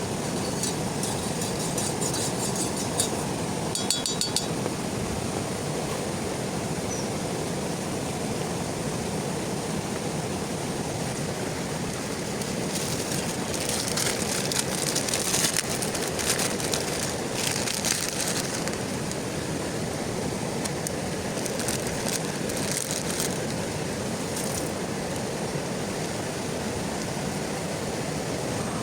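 Heavy rain falling steadily, a dense even hiss, with bursts of sharp ticking from drops near the start and again around the middle.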